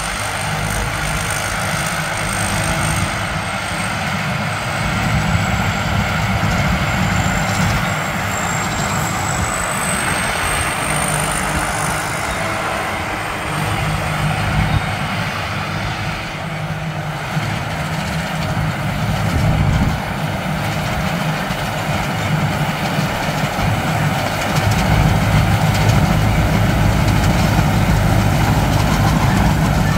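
Tracked rice combine harvester running as it harvests: a steady engine drone with a thin high whine that drifts in pitch. It grows louder near the end as the machine comes closer.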